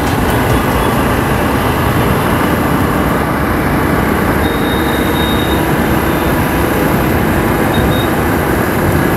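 Steady, loud rush of wind and road noise from a moving motorcycle in city traffic, picked up by a handlebar camera microphone with no noise suppression.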